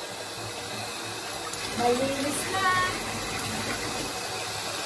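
Water running steadily into a bathtub while a wet puppy is bathed, with a short high whine from the puppy between two and three seconds in.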